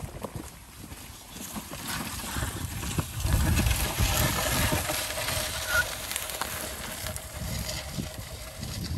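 Bundle of freshly cut bamboo poles, leaves still on, dragged along a dirt path: a scraping, rustling noise that grows louder as it passes close, is loudest around the middle, and then eases off as it is pulled away.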